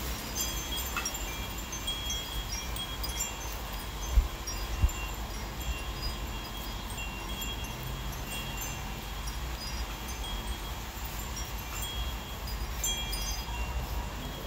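Chimes ringing in scattered, irregular high strikes over a steady low rumble, with two short low thumps about four seconds in.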